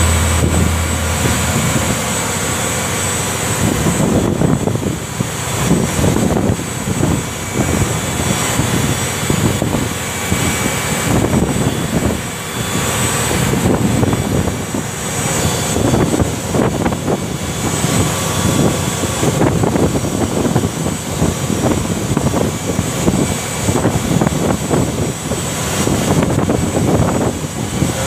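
Fishing boat's engine running steadily, a constant drone with uneven rumbling mixed in.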